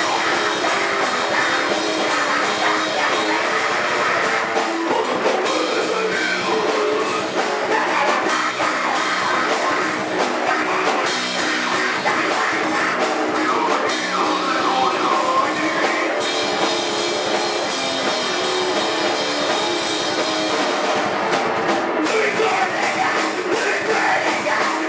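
Grindcore band playing live: distorted electric guitar and drum kit with harsh screamed vocals, a dense, unbroken wall of sound.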